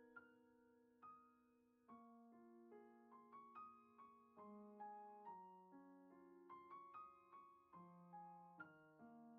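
Quiet, slow piano background music: single notes and soft chords struck one after another, each ringing and fading.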